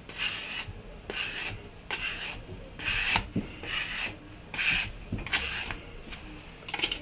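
An old card scraped in gliding strokes over a rolled slab of air-dry clay to smooth and compress its surface. It makes a rasping scrape about once a second, seven strokes in all, with a short sharp click near the end.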